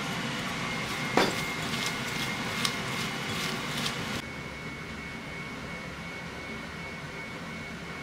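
A steady hum and hiss with a thin high tone, broken by a few sharp clicks or knocks in the first half. The loudest click comes about a second in. The hiss drops abruptly about four seconds in, leaving a quieter hum.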